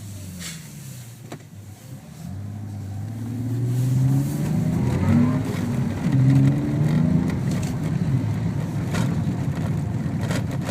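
Engine note of a Renault Fluence 1.6 dCi as it accelerates, most likely the R-Link R-Sound Effect's synthetic engine sound played through the car's speakers. Quiet for the first two seconds, it then climbs in pitch, dips and climbs again several times, and grows louder.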